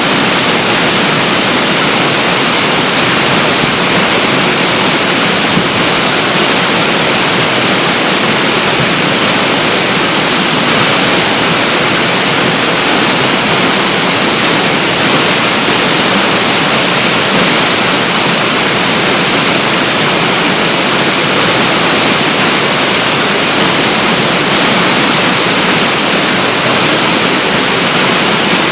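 Large artificial waterfall: a torrent of water falling and splashing into its pool in a loud, steady rush.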